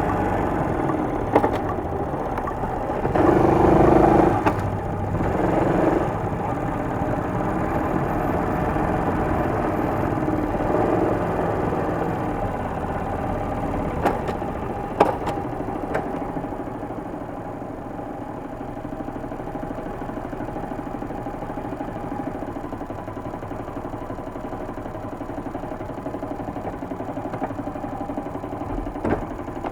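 Small single-cylinder motorcycle engine running, louder and busier for a few seconds early on, then settling and gradually easing off, with a few short clicks.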